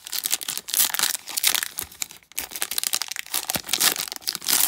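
Foil trading card pack wrapper being torn open and crinkled by hand: a dense crackling that stops briefly about two seconds in.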